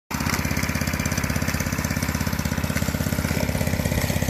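Mini bike's small engine idling steadily with an even, rapid beat.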